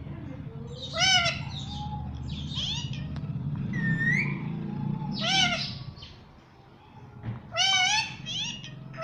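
Pet parrot making a series of about six short, pitch-bending calls, one of them a clear rising whistle near the middle.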